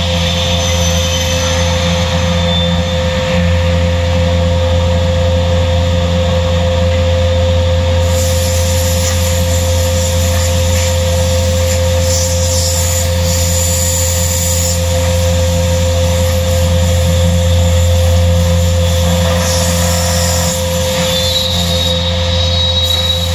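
WARSM-DP5000L computerised panel saw running in automatic mode on 18 mm particleboard, with its dust extraction: a loud, steady hum carrying a constant mid-pitched tone. A harsher hiss from the blade cutting rises over it from about eight seconds in until about fifteen seconds, and again briefly around twenty seconds.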